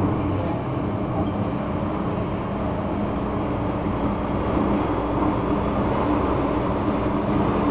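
MTR M-Train metro car heard from inside while running through a tunnel: a steady rumble of wheels on rail with a constant low hum from the running gear.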